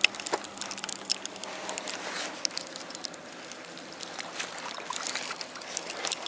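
An aluminium inertial fishing reel is being wound by hand to bring in a hooked grayling. Light, irregular clicks and handling rubs sit over a steady faint hiss.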